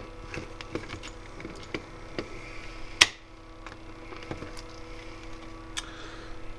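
Small clicks and ticks of a screwdriver and tiny screws as the screws are taken out of a plastic cassette tape shell, with one sharper click about three seconds in.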